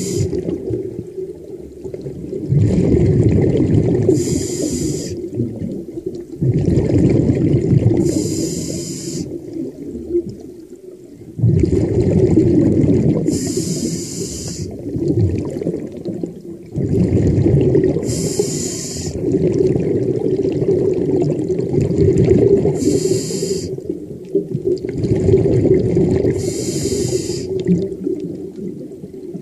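A diver's breathing, heard underwater: a short hiss about every four to five seconds, with the low rush and gurgle of water and bubbles between breaths.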